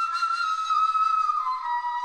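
Background music: a solo flute playing a slow melody in long held notes, stepping down in pitch about two-thirds of the way through.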